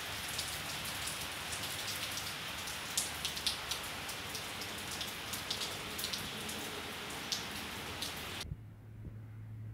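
Steady rain falling, with many sharp close ticks of drops landing. It cuts off suddenly near the end, leaving only a low steady hum.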